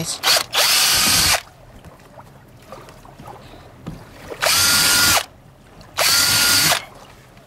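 Cordless drill running a 5/32-inch bit through a plastic kayak hull to make rivet holes: three runs of about a second each, one near the start and two in the second half, with a steady motor whine.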